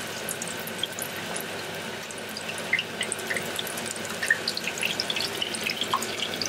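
Corn fritter batter deep-frying in a pan of hot oil: a steady sizzle with many small, scattered pops and crackles.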